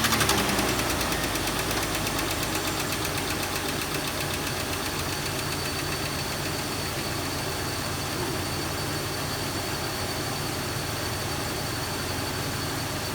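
A 2001 Jeep Cherokee XJ's 4.0-litre straight-six idles just after starting, with a fast light ticking that settles over the first few seconds. The owner takes the tick for a lifter, and here it goes quiet almost immediately after an Engine Restore oil additive.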